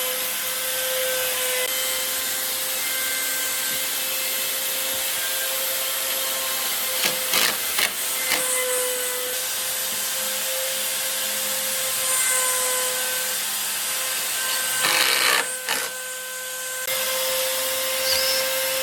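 Handheld power tool motor running steadily with a constant high whine over a hiss, working on wood, with brief louder bursts about seven seconds in and again around fifteen seconds in.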